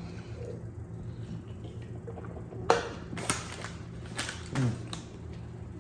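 A man eating: a few sharp clicks and crunches, the loudest a little under three seconds in, then a short low burp falling in pitch, over a steady low hum.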